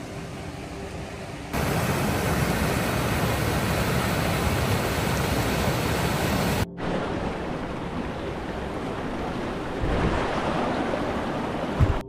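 River water rushing over rocks in rapids, a steady hiss and rumble that jumps in level at a few abrupt cuts. A brief low thump just before the end.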